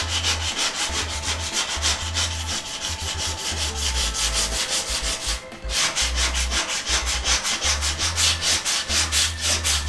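Hand sanding of hardened body filler with sandpaper on a flexible sanding block: quick, even back-and-forth strokes, with a brief pause about five and a half seconds in. This is the filler being rubbed back to shape after it has cured.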